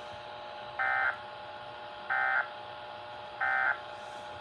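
Emergency Alert System end-of-message data bursts: three short, identical buzzy digital chirps about 1.3 seconds apart, signalling the end of the alert, over a faint steady radio hiss.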